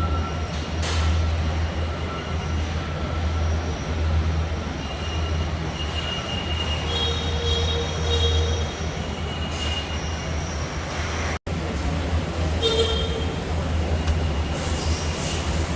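Car assembly plant floor noise: a steady low machinery hum with thin high-pitched squeals and whines coming and going. The sound cuts out for an instant about eleven seconds in.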